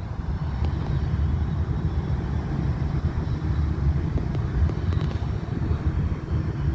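Ryanair Boeing 737 twin jet engines rumbling low and steady as the airliner taxis slowly past.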